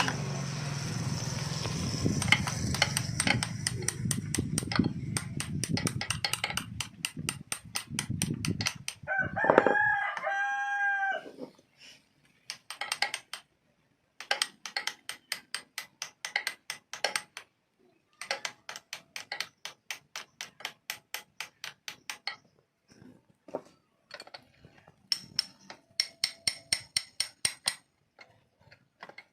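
A rooster crows once, about ten seconds in, over a steady background noise. After it come runs of sharp tapping strikes, about four a second, with short pauses between the runs.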